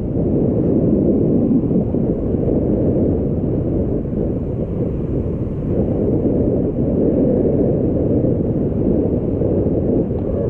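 Wind rushing over the microphone: steady, loud, rumbling noise with no pauses.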